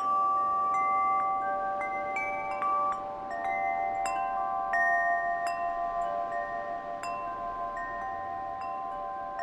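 Wind chimes ringing, struck at irregular moments, several notes a second, each ringing on long so the tones overlap into a shimmering wash.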